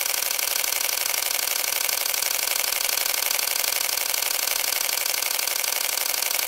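Canon EOS R6 shutter firing a continuous burst with the electronic first curtain shutter in its 12-frames-per-second H+ drive mode: a rapid, steady, even run of shutter clicks.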